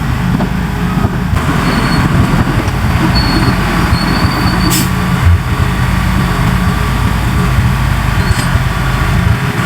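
Large bulldozer's diesel engine running steadily under load, with a faint high squeal coming and going and a sharp click about five seconds in.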